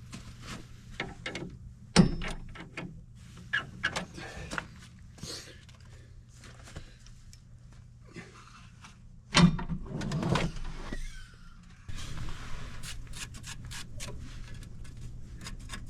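Handling noises: scattered clicks and knocks, with two heavy thumps about two seconds in and about nine and a half seconds in, over a faint low steady hum.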